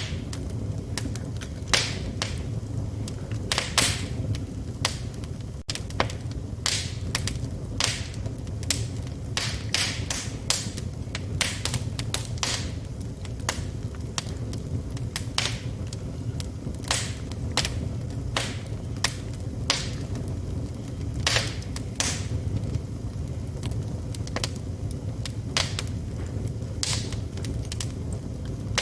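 Wood fire burning in a fireplace: irregular crackling, with sharp pops every second or so, some louder than others, over a steady low rumble of the flames.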